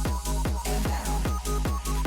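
Background electronic dance music with a fast, steady kick-drum beat and short repeating synth notes.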